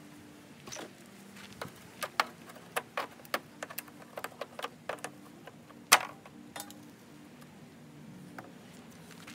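Hand tools and small hardware being handled: a dozen or so scattered sharp clicks and taps, the loudest about six seconds in, over a faint steady hum.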